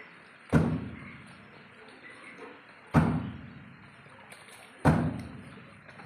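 Demoiselle crane bathing in a metal basin of water: three loud splashes and thuds as it beats its wings down into the water, about two seconds apart, each dying away quickly.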